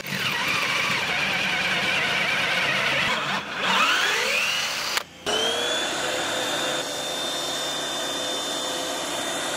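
Power drill boring a hole through wooden deck planking, its motor pitch dipping and climbing again as the bit bites. After a brief break, a vacuum cleaner starts with a rising whine and then runs steadily.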